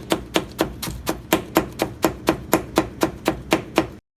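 A knife finely shredding cabbage in quick, even chopping strokes, about four a second. The strokes stop abruptly near the end.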